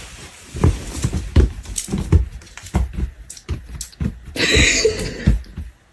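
A run of irregular thumps and knocks, with a brief harsher noise about four and a half seconds in.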